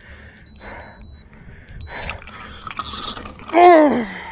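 A handheld trolling-motor remote beeping as its buttons are pressed, a long beep and then a short one, among clicks and rattles. Near the end a man lets out one loud falling cry.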